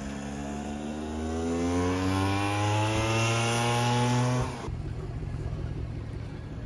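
Small motor scooter engine accelerating away, its pitch rising steadily for several seconds; the sound cuts off suddenly about four and a half seconds in.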